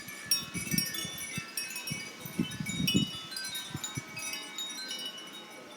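Wind chimes swinging hard in gusty storm wind, their many high metallic tones ringing and overlapping in quick, irregular strikes.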